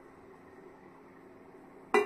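Steel cooking pot set down with a single loud metallic clang near the end, ringing briefly. Before it, only a faint steady hum.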